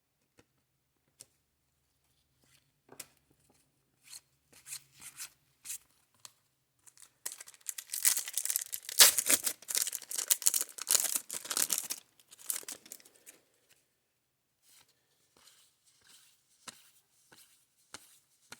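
A foil trading-card pack torn open and its wrapper crinkled, loudest for about four seconds in the middle, with light clicks of cards being handled before and after.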